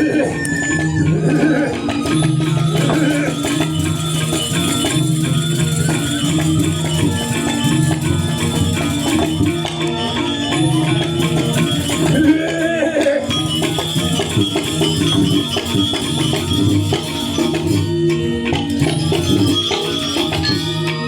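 Balinese gamelan music: a repeating pattern of pitched metal notes under fast, continuous jangling cymbal strokes.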